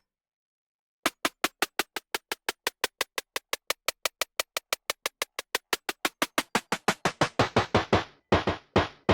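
A drum sample played back from a Native Instruments Maschine MK3, repeating in short, even hits about six a second. From about seven seconds in, the hits ring longer and carry more low end.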